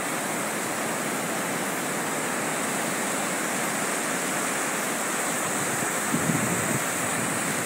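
Ocean surf breaking and washing up the beach in a steady rush.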